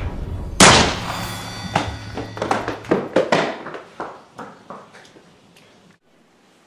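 A loud sudden bang about half a second in, followed by a quick scatter of sharp knocks and clatters that thin out and fade over the next few seconds, over background music.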